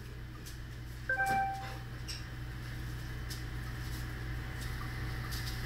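Steady low machine hum, with a short electronic beep about a second in and a few faint clicks.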